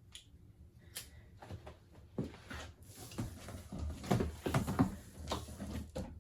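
Printer packaging being handled and pulled apart while unboxing: a few faint clicks, then a busy run of irregular rustles, scrapes and knocks over the second half.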